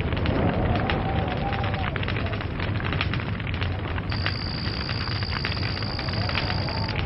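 Log fire crackling, with dense irregular pops and snaps over a steady low rumble of the flames. A steady high whistle comes in about four seconds in and stops near the end.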